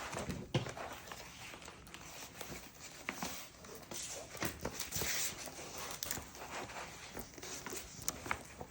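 Rustling and crinkling of a rolled diamond-painting canvas being unrolled and handled, with scattered sharp clicks and crackles.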